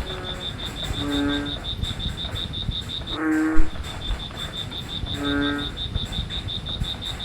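A frog chorus at night: a frog gives three short, low, nasal calls about two seconds apart over a cricket's steady pulsing high trill, about six pulses a second. There is a brief loud pop just after the second call.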